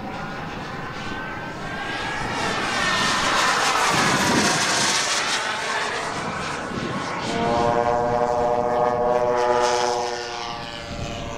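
Jet engine of a large radio-controlled de Havilland Vampire model flying past: a rushing jet noise that swells to its loudest about four seconds in, with a sweeping phasing sound as it passes. About seven seconds in, a steady droning hum made of several tones joins it and lasts to the end.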